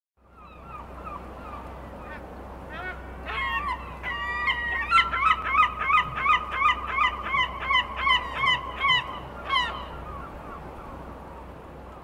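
Gulls calling: a few faint cries at first, then louder calls from about three seconds in, building into a loud laughing series of repeated calls, about three a second, that stops near ten seconds. A steady low rumble runs underneath.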